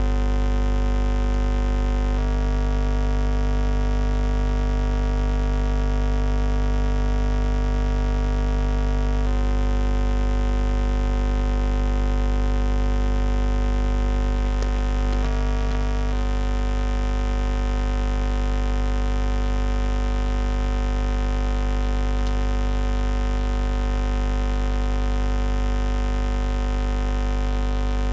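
Loud, steady electrical mains buzz with many overtones, the static buzzing noise picked up by a microphone. The mix of overtones shifts slightly about two seconds in, again around nine seconds, and briefly in the middle.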